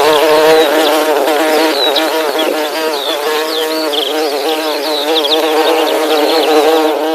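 Bees buzzing steadily, the hum wavering slightly in pitch, with short high chirps over it.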